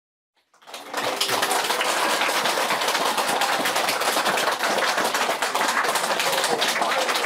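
A roomful of people applauding with fast, dense clapping and a few voices calling out. It fades in about half a second in, then holds steady.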